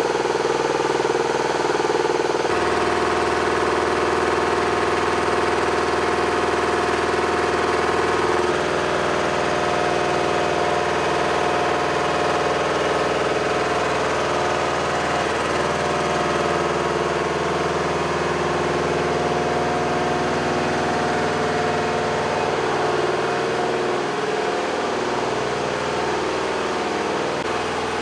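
Engine of a weapons-loader lift truck running steadily at idle, a continuous hum whose tone changes abruptly about two and a half seconds in and again at eight seconds.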